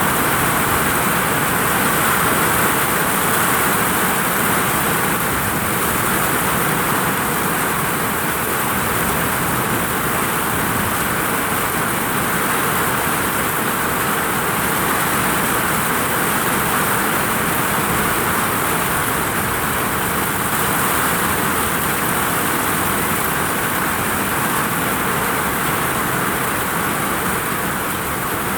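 Heavy rain falling on a vinyl roof: a loud, steady, dense hiss with no breaks or single impacts standing out.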